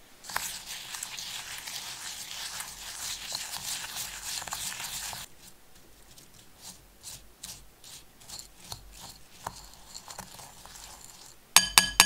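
Spoon stirring crushed digestive biscuit crumbs into melted butter in a bowl: a steady gritty scraping for about five seconds, then separate scrapes and ticks. Near the end there is a quick run of sharp ringing clinks.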